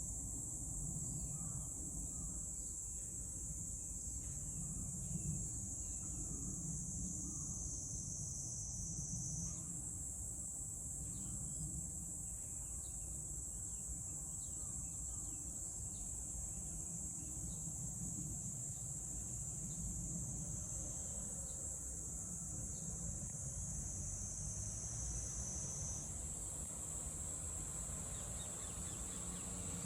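A cicada singing one continuous high buzz without a break. Its pitch sinks slowly and then jumps back up, twice, about ten seconds in and again near the end. A low background rumble runs beneath it.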